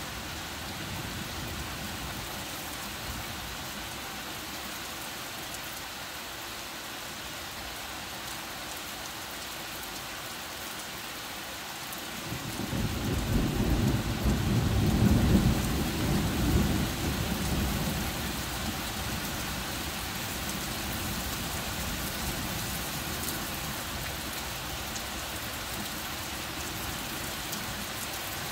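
Heavy rain falling steadily. About twelve seconds in, a long low rumble of thunder builds, peaks and fades away over about six seconds.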